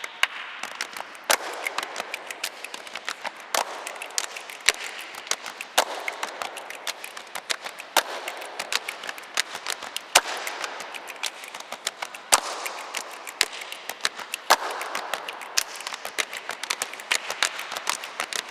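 Body percussion: several people clapping their hands in a dense, scattered patter, with louder single claps standing out every second or two.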